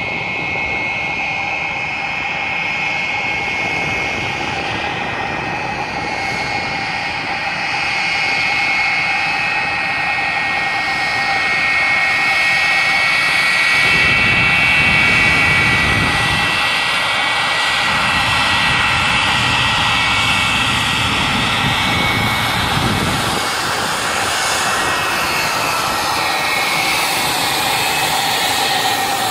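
McDonnell Douglas MD-83's rear-mounted Pratt & Whitney JT8D turbofans running at taxi power as the jet rolls past. It makes a steady high whine over a rumble, growing louder about halfway through as the aircraft comes closest.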